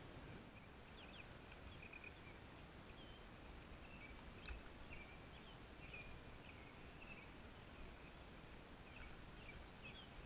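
Faint outdoor birdsong: short, high chirps and little warbled phrases repeating over a low steady hiss, with a single light click about halfway through.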